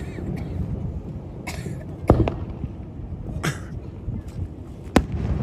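Aerial firework shells bursting: two sharp bangs about three seconds apart, with quieter pops between them.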